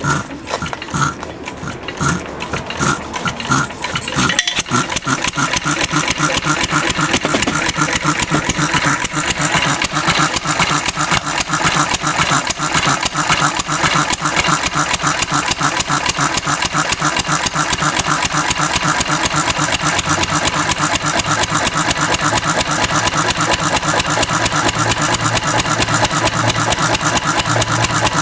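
Antique Cushman Cub single-cylinder four-stroke stationary engine running on Zippo lighter fluid instead of gasoline. It fires unevenly at first, then about four seconds in picks up into a steady, fast, even beat.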